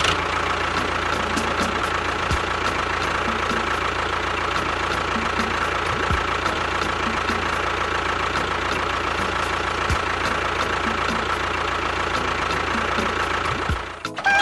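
A mini tractor's small motor running steadily with a constant whine, cutting out briefly near the end.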